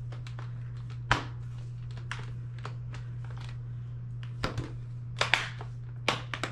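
Plastic clips of a Samsung Chromebook XE303C12's bottom case snapping into place as the cover is pressed back on, with lighter ticks of plastic being handled in between. One sharp snap comes about a second in and several come close together in the second half.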